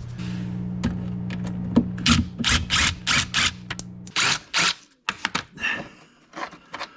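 A small power tool's motor running steadily for about four seconds and then stopping, with clicking and short rattling bursts over it, followed by scattered metal clicks and clunks, as fasteners holding a golf cart's gas tank are taken out.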